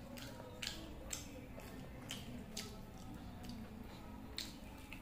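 Eating by hand: fingers squishing and mixing biryani rice on a steel plate, with short wet clicks every second or so.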